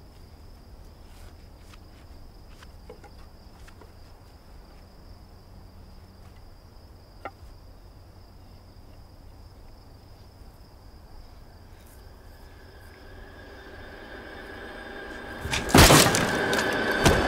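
Quiet rural ambience with a faint steady insect chirr and a single small tick about seven seconds in. From about twelve seconds a sustained music tone swells louder, and near the end loud crashing impacts break in as a scuffle starts.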